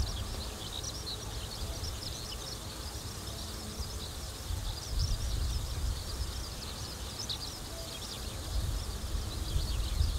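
Small birds chirping continuously in a dense, irregular chatter, over a low, uneven rumble.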